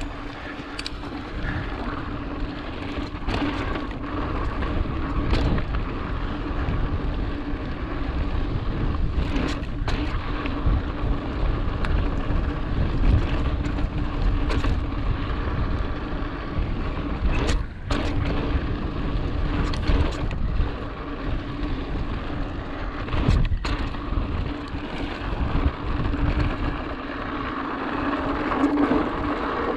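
Mountain bike being ridden, with wind buffeting the camera microphone, a steady hum, and scattered clicks and rattles from the bike.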